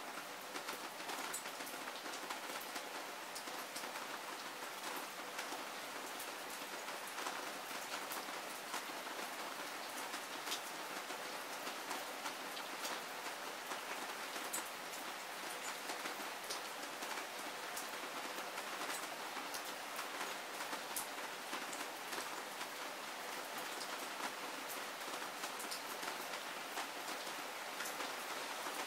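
Heavy rain falling steadily: a dense, even hiss with many sharp ticks of single drops striking close by.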